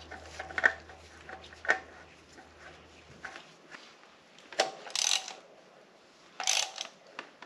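A new spin-on oil filter being fitted to a Kubota BX1870 tractor engine with hand tools: a few scattered clicks and knocks, then two short ratcheting runs in the second half.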